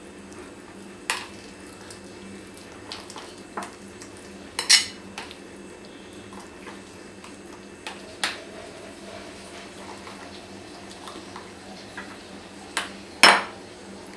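A steel spoon stirring thick gram-flour batter in a ceramic bowl, knocking against the bowl's side with a clink every few seconds. The loudest clink comes about a second before the end, with a steady low hum underneath.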